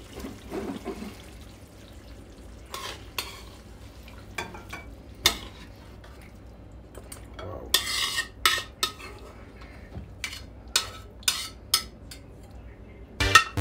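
A metal spoon scraping and clinking against a metal wok and a ceramic plate as thick-sauced pork ribs are scooped out. It comes as a string of separate clinks, with a longer scrape about eight seconds in.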